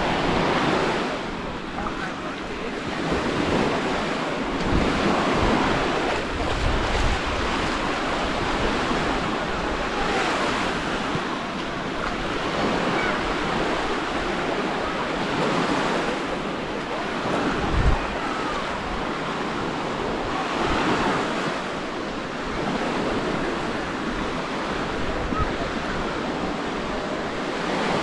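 Small waves of the Mediterranean washing up and running back over a sandy shore, swelling and easing every few seconds, with wind gusting on the microphone now and then, hardest about two-thirds of the way through.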